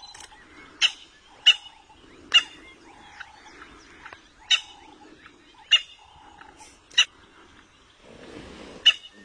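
A wild animal's short, sharp calls, repeated at irregular intervals of about one to two seconds, with quieter low, rough sounds between them and a stretch of rustling near the end.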